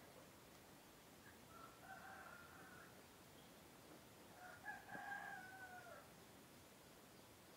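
Laying-breed cockerel crowing faintly, twice: a shorter crow about a second and a half in, then a louder one about four and a half seconds in whose pitch drops at the end.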